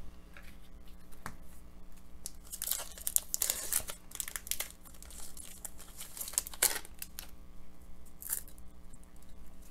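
A foil hockey card pack wrapper being torn open and crinkled by hand as the cards are worked out of it. A dense run of crackling comes about three seconds in, and a few sharper crinkles follow near the end.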